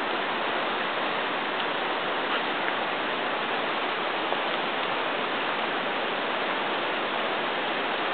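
River water rushing steadily, running high and fast.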